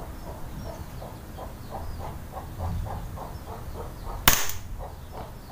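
A rifle fired once, about four seconds in: a test shot to check the accuracy of a newly mounted scope. Faint chirping repeats about three times a second in the background.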